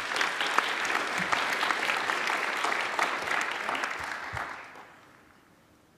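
Audience applauding: dense clapping that thins out and dies away about four to five seconds in.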